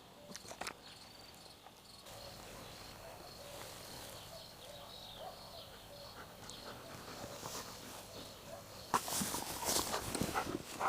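Faint sounds from a dog, with a few louder rustles and clicks near the end.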